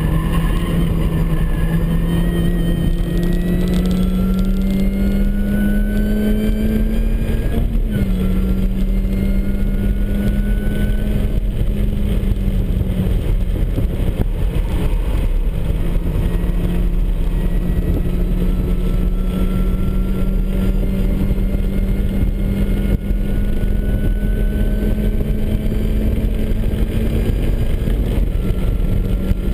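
MINI Cooper S's supercharged four-cylinder engine pulling under load at track pace. The revs climb slowly, drop sharply at an upshift about eight seconds in, then climb again, over a steady rush of tyre and wind noise.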